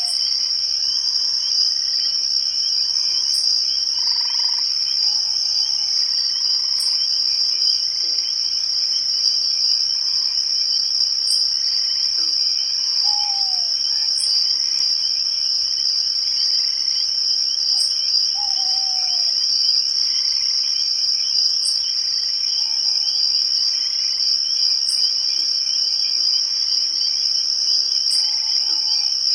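Night forest chorus of crickets trilling in a steady, continuous high band. A faint high tick comes every three to four seconds, and a few short falling calls sound lower down now and then.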